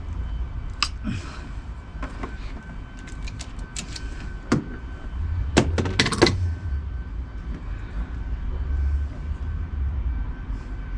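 Hand crimping tool closing its jaws on a 25 mm² copper cable lug: a series of sharp metal clicks and clacks, loudest about six seconds in, over a steady low rumble.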